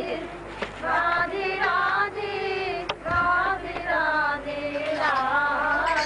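Devotional singing by a high voice in long, wavering phrases that break about once a second.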